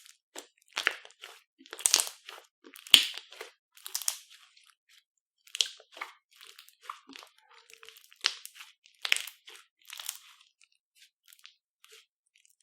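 Slime being squished and mixed by hand, giving an irregular string of sharp wet pops and crackles, a few much louder than the rest, with short pauses between handfuls.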